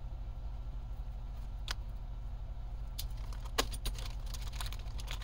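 Small RC car drivetrain parts and a plastic replacement-part bag being handled on a workbench: one light click about a second and a half in, then a quick run of small clicks and crackles from about three seconds in, over a steady low hum.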